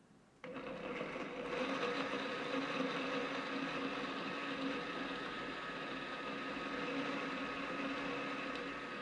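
Countertop blender switched on about half a second in and running at a steady pitch as it purées roasted butternut squash soup.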